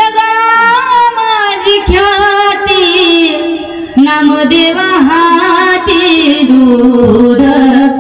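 Woman singing a devotional kirtan abhang, long melodic notes held and gliding in pitch, with a brief break about four seconds in.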